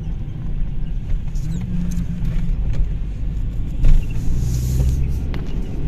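Car driving along, a steady low engine and road rumble heard from inside the cabin, with a short knock about four seconds in.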